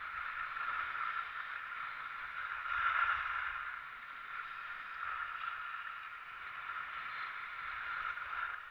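Steady hiss of skis sliding and scraping over packed snow while skiing downhill, swelling louder about three seconds in.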